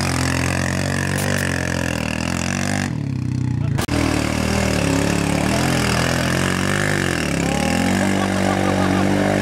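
ATV engine running under load as the quad churns through mud and water, its pitch rising and falling with the throttle. There is an abrupt break just before the middle.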